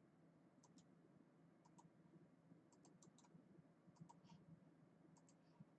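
Near silence with faint computer mouse clicks, a dozen or so scattered through, several in quick pairs, over a low steady hum.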